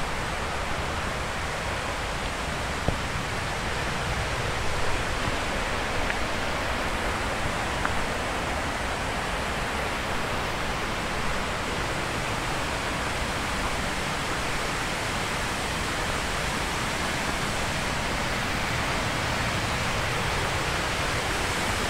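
Steady rushing of a mountain stream cascading down over rocks, with a few faint knocks in the first several seconds.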